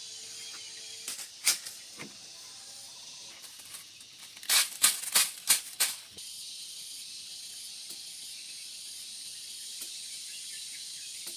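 Several short, sharp noisy strokes over a steady high hiss: three spaced strokes in the first two seconds, then a quick run of about six a little past the middle. No chainsaw engine is running.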